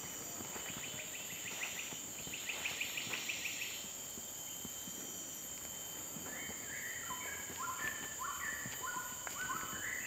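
Tropical forest ambience: a steady high insect drone, with birds calling over it. A rapid run of short chipping notes sounds from about one to four seconds in. From about six seconds there is a series of short whistled notes stepping back and forth between a higher and a lower pitch.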